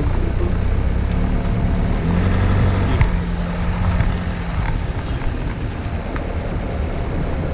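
A vehicle's engine running at low speed as it drives slowly, with a held low hum in the middle and a couple of knocks about three and four seconds in.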